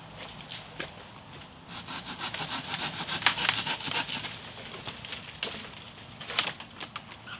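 Dry dead wood being gathered by hand: a long branch pulled and broken through the undergrowth, its twigs cracking and snapping. A dense run of crackling comes from about two to four seconds in, then a few sharper single snaps.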